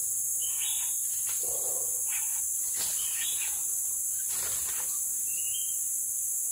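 Forest insects keep up a steady, high-pitched chorus, with a few faint, brief sounds beneath it.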